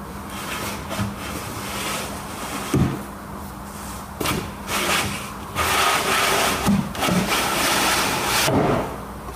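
A wardrobe back panel sliding down in the rebated grooves of the side panels: a scraping rub, loudest for about three seconds in the second half, with several light knocks of board on board.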